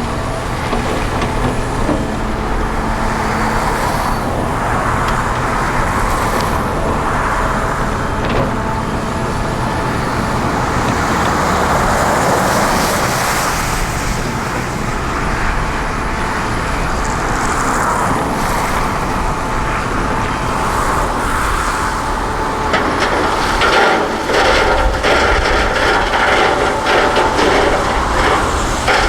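Excavator at work: its diesel engine running steadily under load with a thin whine. About two-thirds of the way in, a rapid run of knocks and clatter begins.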